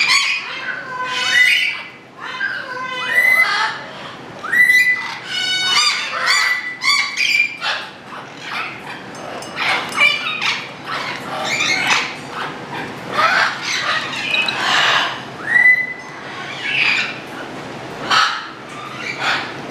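Parrots calling in a long, busy string of squawks, screeches and chatter, broken by several short whistled notes.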